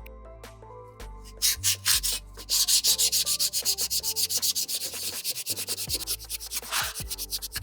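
Hand sanding of a 1/24 scale Chevy Camaro ZL1 model: quick back-and-forth strokes of abrasive. A few strokes come first, then a short pause, then a fast, steady run of about five strokes a second from about a second and a half in.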